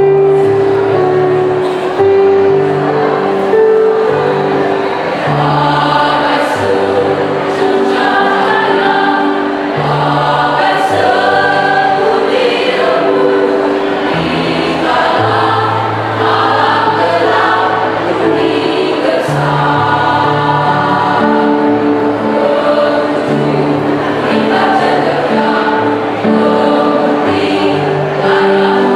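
Mixed choir of women and men singing, several voices holding notes together and moving through a melody without a break.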